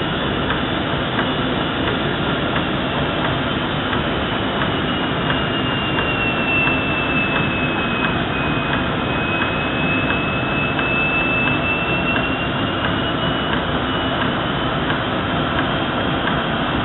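Automatic profile blasting machine firing corundum through air-fed nozzles inside its cabinet: a loud, steady hiss and rush of air and grit. A high whistle rides on top, sinking slowly in pitch through the middle and climbing back.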